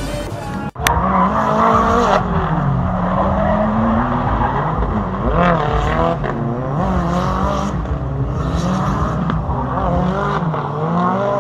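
Electronic music cuts off just under a second in. Then drift cars run at high revs, their engine pitch rising and falling over and over, with tyres squealing as they slide.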